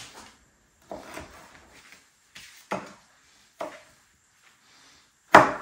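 Kitchen knife chopping cooked steak on a cutting board: a handful of separate chops spaced about a second apart, with the loudest near the end.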